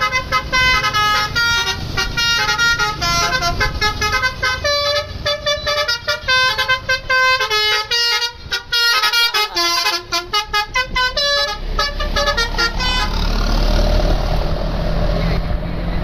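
Bus telolet horn, a multi-tone basuri horn set, playing a rapid tune of short stepped notes. Near the end the tune stops and gives way to a low rumble of engine and road noise.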